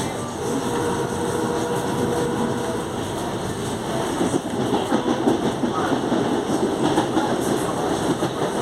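Growl of a CPTM Série 8000 electric train's traction motors, heard inside a moving car with wheel-on-rail rumble. The rail clatter grows busier in the second half.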